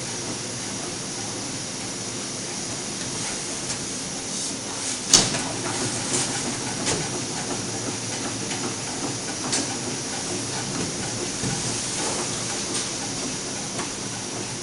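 Steady hiss of two camping-gas burners heating a two-cylinder Stirling engine, with scattered light mechanical clicks and one sharper click about five seconds in.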